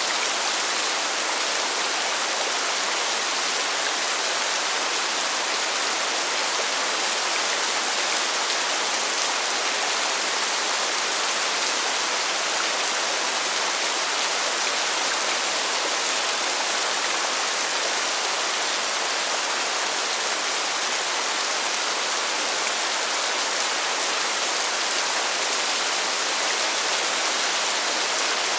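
Steady heavy rainfall, an even dense hiss with no single drops standing out.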